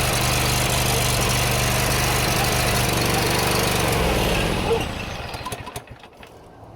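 Kawasaki FH601V V-twin engine of a John Deere GT245 lawn tractor running roughly, then shut off about four seconds in. It winds down with a single pop and dies away. It is running rich, which the owner takes for a fuel problem.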